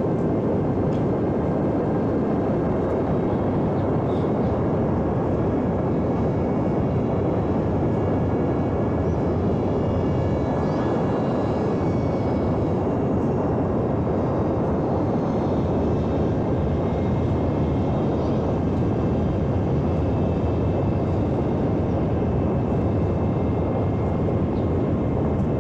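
Electric RC airplane in flight: a thin motor-and-propeller whine that drifts slowly in pitch, under a steady rushing noise.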